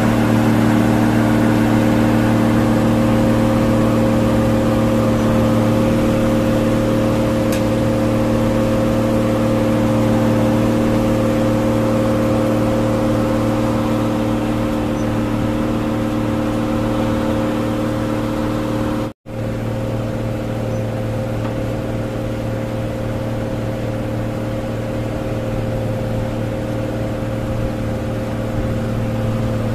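Heavy truck diesel engine running steadily at a constant speed, as on a concrete pump truck working at a pour, with one brief dropout about two-thirds through.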